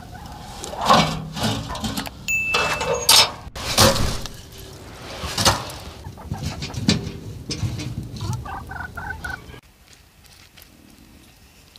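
Chickens clucking in a farmyard, a run of short repeated calls near the end, mixed with knocks and clatter of logs being fed into a metal wood-burning stove.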